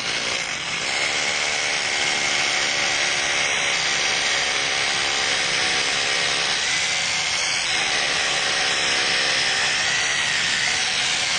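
Corded hammer drill with a 1/4-inch masonry bit boring into a concrete deck, running continuously under load with a steady motor whine.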